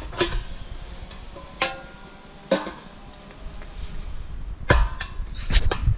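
Pieces of scrap metal being handled and knocked together, about half a dozen sharp clanks, several of them ringing on briefly.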